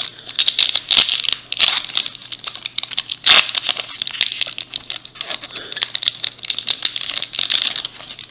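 Foil wrapper of a Topps Opening Day baseball card pack crinkling and tearing as it is ripped open by hand: a dense run of crackles, loudest about three seconds in.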